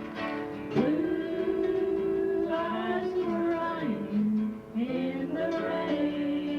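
Singing with guitar accompaniment, played back from an old home-recorded cassette tape; the voice holds long notes and slides between pitches about a second in and again about five seconds in.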